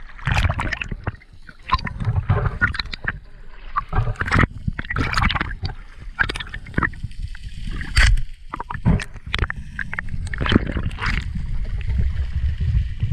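Seawater sloshing, gurgling and splashing around a camera held at and just under the sea surface, with irregular sudden bursts over a low rumble.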